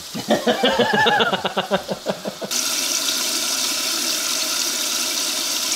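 A tap running, a steady rush of water that starts abruptly about two and a half seconds in. Before it comes a short stretch of rapid, uneven pitched sounds.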